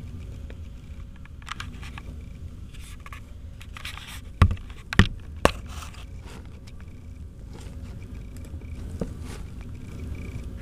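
Rustling and scraping in a hamster cage's shredded paper bedding, with three sharp knocks in quick succession about halfway through.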